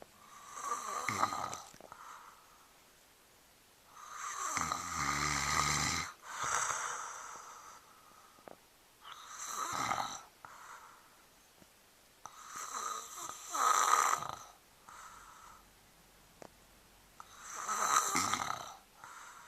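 A sleeping man snoring: five slow, noisy breaths about four seconds apart, the second one with a low, rattling vibration.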